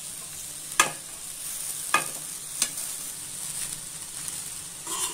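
Gobi (cauliflower) stir-fry sizzling in a metal kadai, with three sharp knocks of the stirring spoon against the pan in the first three seconds.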